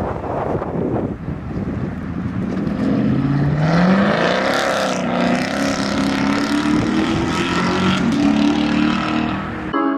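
Chevrolet Camaro ZL1's supercharged V8 accelerating hard away, its pitch climbing, dropping at each upshift and climbing again. At first there is rumble and wind on the microphone; near the end the engine gives way to piano music.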